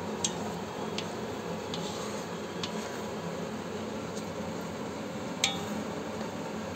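Wooden spatula stirring a thick cream-and-mushroom sauce in a cast-iron pan, with a few sharp clicks as it knocks against the pan, the loudest about five and a half seconds in, over a steady low background noise.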